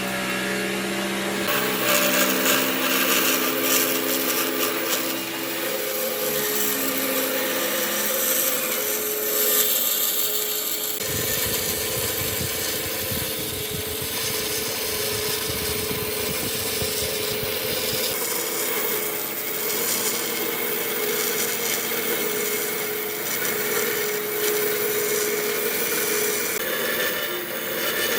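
Power tool working wood: a steady motor whine over a rasping, grinding noise, its character changing abruptly about 11 and 18 seconds in.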